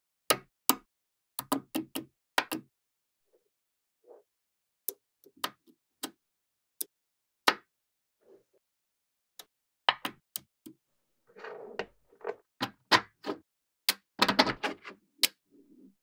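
Small magnetic balls clicking as they snap together, in sharp irregular clicks with short clattering runs about eleven and fourteen seconds in.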